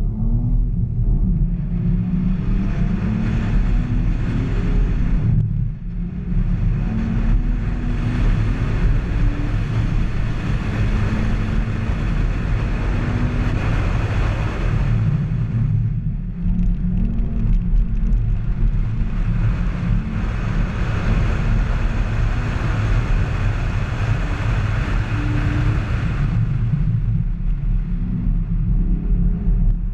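Car engine driven hard through an autocross course, its note rising and falling as it accelerates and lifts. A loud rushing noise rides over the engine and drops out briefly three times.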